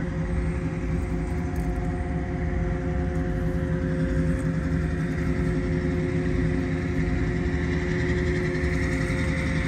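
Steady engine drone: a low rumble with a few steady tones over it, and a higher whine that grows louder near the end.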